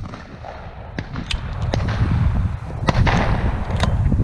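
Several sharp shotgun reports at a distance, the clearest two about three and four seconds in, over a steady rumble of wind on the microphone.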